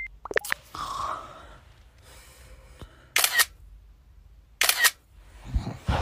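Phone camera shutter sound, twice, about a second and a half apart, as selfies are taken.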